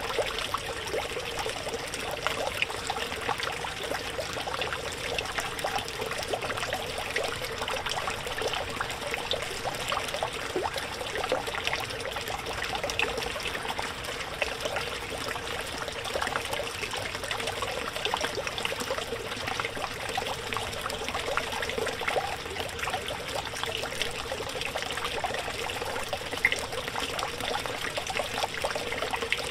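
Small pump-driven pond fountain: water from its jet splashing and trickling back onto the pond surface, a steady, even splashing with countless small droplet ticks.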